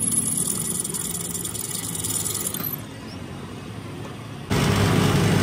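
Drill press boring into the end of a steel axle shaft, with a high-pitched cutting noise over the hum of the machine that stops about three seconds in. About a second and a half later the sound jumps abruptly to louder, steady machine running.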